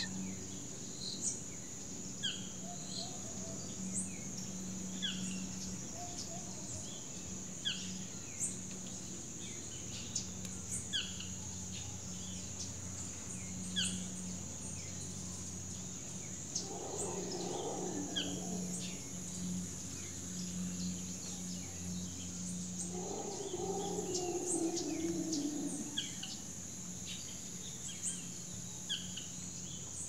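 Rainforest ambience: a steady high insect drone with short, falling chirps about once a second over a low hum. Twice in the second half a lower, wavering call rises for a couple of seconds.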